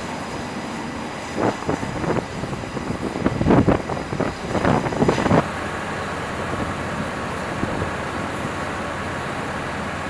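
Aircraft carrier flight-deck noise: irregular gusts of wind buffeting the microphone over a steady mechanical drone. About five and a half seconds in it switches abruptly to an even, steady drone with a faint high whine.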